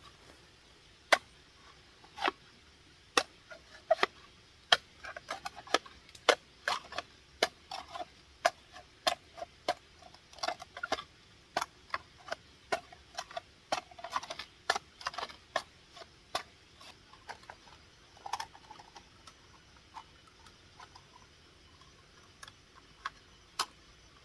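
Irregular sharp taps and knocks, roughly one to three a second, densest in the middle and thinning out toward the end.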